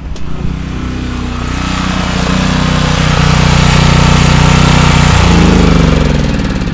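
A click, then a generator's small engine running on a cold start. It grows louder over the first few seconds, changes pitch about five seconds in, and eases off near the end.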